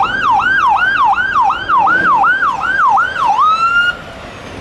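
Electronic emergency siren on a fire-department bulldozer transport truck, running in fast yelp mode at about two to three swoops a second, then switching to a short steady tone and cutting off near the end, leaving traffic noise.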